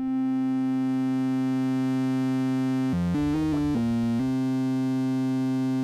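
Novation Bass Station 2 analogue synthesizer holding a steady bright note: oscillator 1's pulse wave mixed in with oscillator 2's triangle wave an octave up. About three seconds in, a few quick different notes are played before it returns to the held note, which cuts off abruptly at the end.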